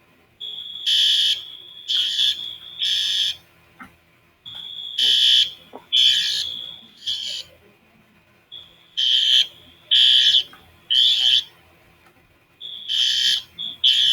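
School fire alarm system sounding its evacuation tone in a temporal-three pattern: groups of three loud, high-pitched electronic beeps about a second apart, each group led in by a fainter steady tone, repeating about every four seconds.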